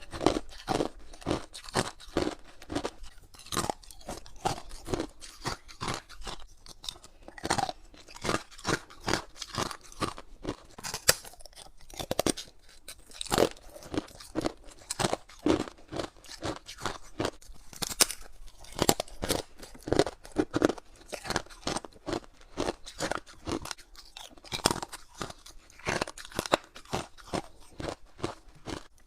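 A person biting and chewing clear ice from a humidifier ice tray: a quick, continuous run of sharp crunches, several a second.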